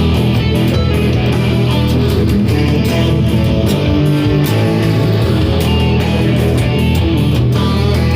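Electric guitar played continuously in a right-hand picking warm-up: a steady run of picked notes and chords with frequent sharp attacks.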